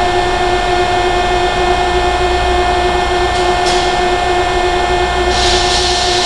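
Loud, steady industrial machinery drone with a strong steady hum. A hiss joins in about five seconds in.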